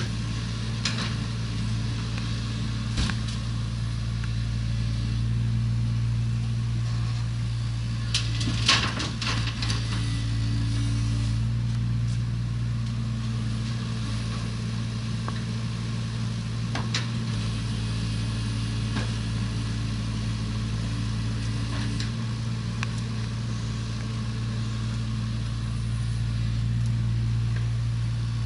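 Hydraulic excavator's diesel engine running steadily, with a few short knocks and scrapes of work. The loudest cluster of knocks comes about eight or nine seconds in.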